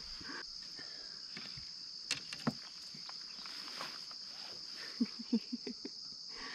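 Steady high-pitched chorus of crickets and other insects, with a couple of sharp clicks about two seconds in and a quick run of light knocks near the end.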